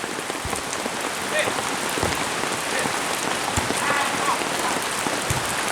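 Steady heavy rain falling on the ground and roofs, with a few louder drops knocking close by.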